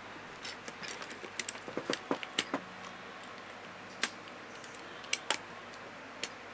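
Plastic clicks and taps of keycaps being pressed onto a Ducky One 2 Mini 60% mechanical keyboard and its keys being pressed: a quick run of clicks about a second in, then a few single clicks later.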